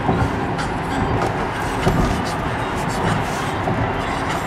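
Steady traffic and street noise, with a few faint clicks and knocks.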